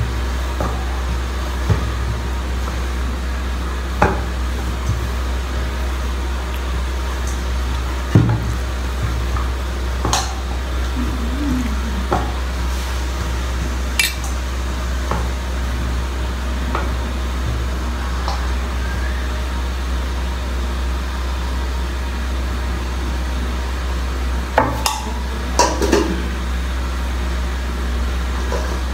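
Light clinks of a metal spoon against a steel pot as momo filling is scooped, a few scattered strokes with a short cluster near the end. Under them is a steady low hum.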